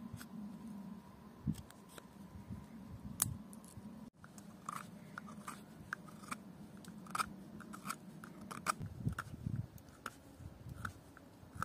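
Knife blade whittling a small wooden stick to a point: a run of short scraping shaving cuts, coming more often in the second half.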